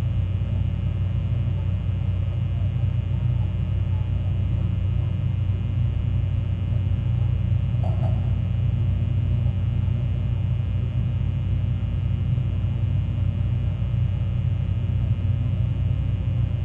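A steady low rumble with a continuous hum, unchanging throughout, with one faint brief sound about halfway through.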